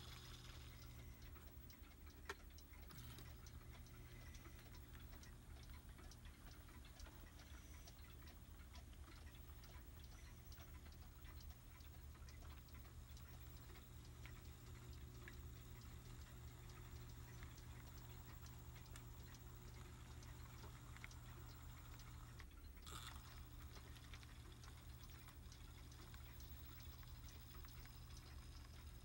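HO-scale brass three-truck Shay locomotive and log cars running on model track: faint, regular clicking over a steady low hum, with one sharper click about two seconds in.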